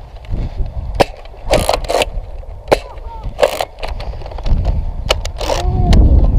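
Nerf foam-dart blasters being worked: sharp clicks and three short hissing shots. Low wind rumble on the microphone grows near the end.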